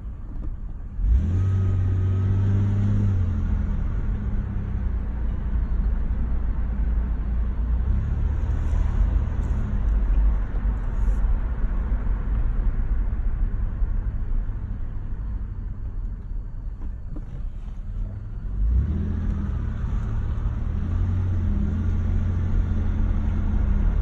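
Car in motion: a steady low rumble that starts abruptly about a second in. A low wavering tone rides on top at first and again near the end.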